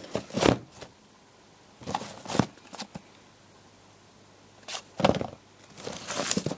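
Fireworks being handled in their cardboard selection box: cardboard tubes and plastic-wrapped packs rubbing and knocking against each other in four short bursts of rustling and scraping.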